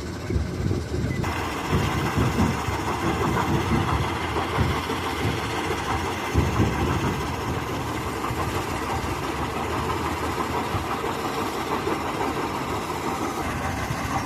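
Heavy machinery running at a stone-crushing site: a steady engine drone over a dense low rumble and clatter. A brighter, higher layer of noise joins about a second in and holds steady.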